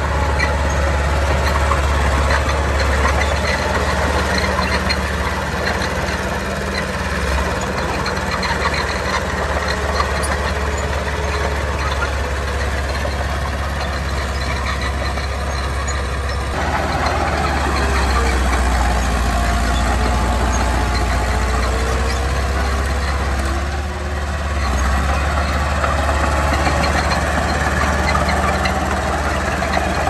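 Diesel engines of heavy earthmoving machinery running steadily. The sound shifts a little past halfway, and a faint whine wavers in pitch during the second half.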